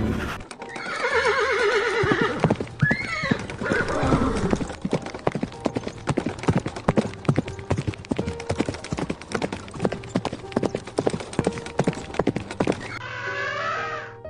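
Animal calls with a wavering pitch in the first few seconds, then a long run of quick, irregular knocks like hoofbeats, and another call near the end.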